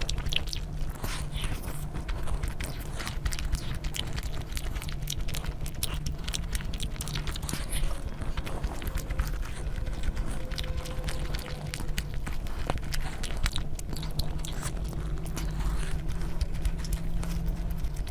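Close-miked eating: a person biting and chewing food, with many small sharp mouth clicks over a steady low rumble.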